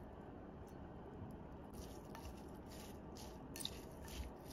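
A half kabosu squeezed by hand over a glass bowl, faintly, then from about two seconds in a wooden spoon tossing wet chopped herbs, onion and sesame in the bowl: short soft scraping strokes several times a second.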